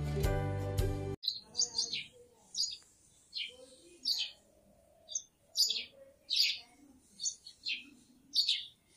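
Background music that cuts off about a second in, then a small bird chirping over and over, short high chirps that fall in pitch, about two a second.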